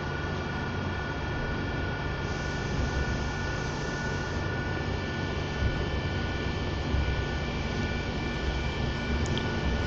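Passenger train running at speed, heard from inside the carriage: a steady rumble of wheels and running gear with several steady high whines on top.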